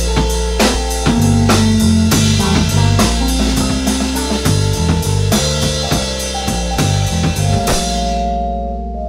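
Rock music with a drum kit, bass and guitar. About eight seconds in, the drums and cymbals drop out, leaving held bass and guitar notes.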